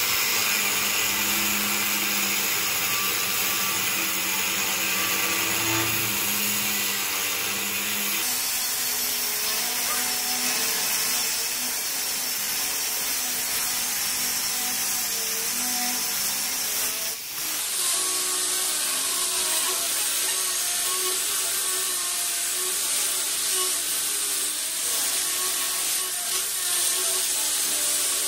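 Angle grinders cutting through a steel bar with abrasive cut-off discs, a steady high-pitched grinding whine. The sound shifts abruptly twice, about eight seconds in and again around seventeen seconds.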